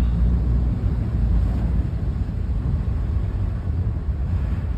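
Steady low rumble of a car driving through deep floodwater, heard from inside the cabin.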